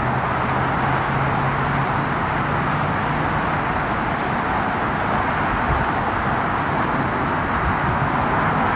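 Falcon 9 rocket's engines heard from afar during ascent: a steady, even roar with no change in level.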